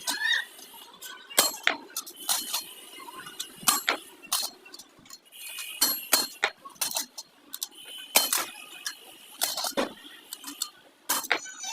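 Metal tools and parts clinking and tapping against each other in irregular sharp strikes, each with a brief metallic ring.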